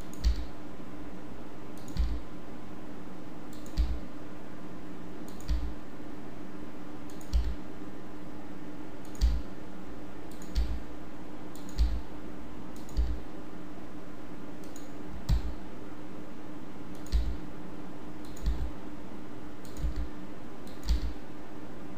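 Computer mouse and keyboard clicks, one every second or two, each with a dull low knock, over a steady low hum: points being extruded one at a time in a 3D program.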